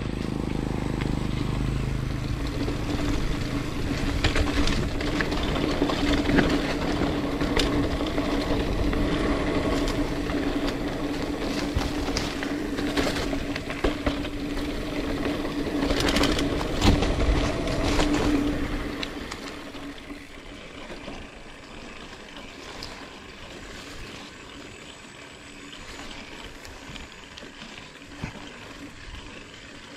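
Mountain bike riding over a dirt singletrack: tyres running on the trail with a steady hum, and the bike rattling with sharp knocks over bumps. About two-thirds of the way through the noise drops to a much quieter rolling sound.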